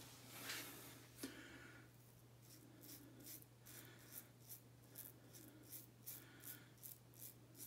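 Edwin Jagger DE89 double-edge safety razor scraping lather and stubble off the neck in short, faint strokes, about two or three a second, starting about two seconds in.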